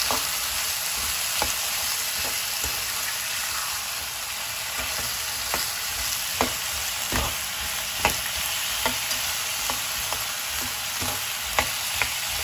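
Elephant yam sticks sizzling in oil in a metal kadai while a slotted metal spatula stirs them, with irregular sharp clicks as the spatula knocks and scrapes the pan, more frequent in the second half.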